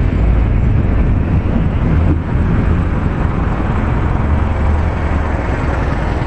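Scania R500 tanker truck's V8 diesel engine running steadily with a deep, even rumble.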